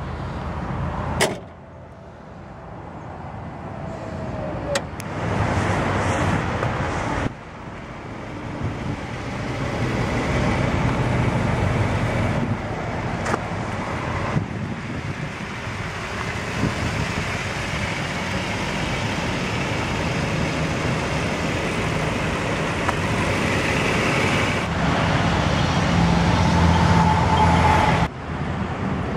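Steady motor-vehicle noise, like traffic or a running car, building gradually, with sudden changes in level at several edits.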